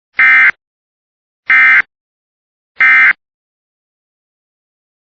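Emergency Alert System SAME end-of-message signal: three identical short bursts of harsh digital data tone, about a second and a half apart. They mark the end of the severe thunderstorm warning broadcast.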